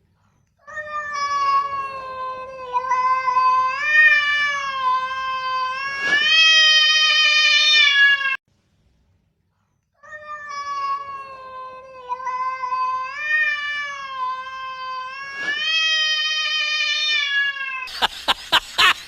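A cat yowling in two long, drawn-out calls of about seven seconds each, the pitch wavering and rising in places, with a pause of about a second and a half between them. Near the end a burst of sharp crackling clicks cuts in.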